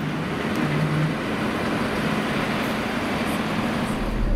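Class 47 diesel-electric locomotive 47802 running as it moves through the station: a steady rumble with a low engine note. A deeper rumble comes in near the end.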